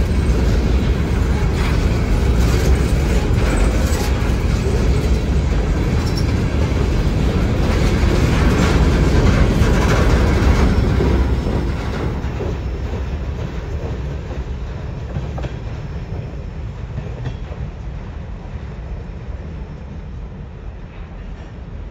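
Covered hopper cars of a freight train rolling past close by, the wheels rumbling along the rails. About halfway through the last car goes by and the sound fades steadily as the train moves away.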